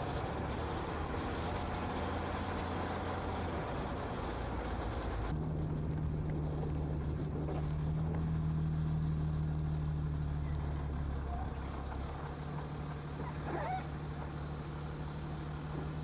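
Automated side-loader garbage truck's diesel engine running with road hiss while it drives; about five seconds in the hiss drops away and a steady engine hum holds as the truck stops. A few light clanks near the end come from the hydraulic arm reaching for and lifting a trash cart.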